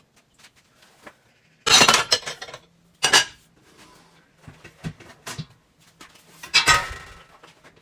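Dishes and utensils clattering in three loud bursts, about two seconds in, about three seconds in and near the end, with smaller clinks in between.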